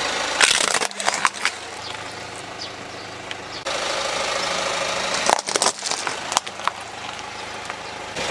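Car engine idling, with two bursts of plastic cracking and snapping as a car tyre rolls over plastic toys: a toy truck about half a second in, then a pile of interlocking plastic building pieces about five seconds in.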